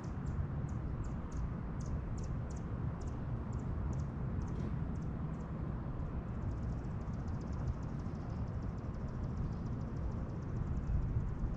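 Insects chirping in short, high, evenly spaced pulses, about two or three a second, turning into a fast steady trill about halfway through, over a low steady rumble.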